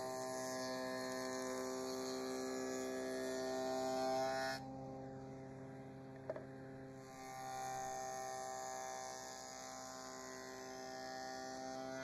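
Table saw fitted with a stacked dado blade, running with a steady hum while it cuts shallow rabbets (frame rests) along the top edges of boards fed against the fence. The cutting noise drops away for a couple of seconds in the middle, with a single click, then resumes.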